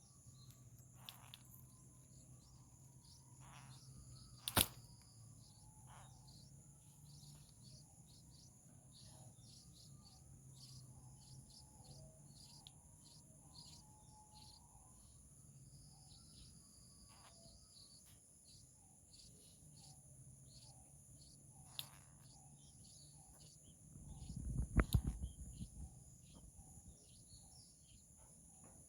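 Faint outdoor ambience of small birds chirping in many short, repeated calls over a steady high insect hum. A sharp click comes about four and a half seconds in, and a louder low rumble near the end.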